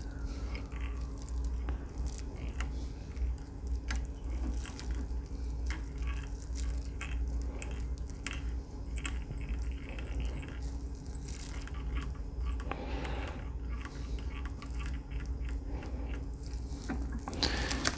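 Scratchy rustling and small irregular clicks of fingers wrapping chenille and thread around a jig hook held in a fly-tying vise, over a steady low hum.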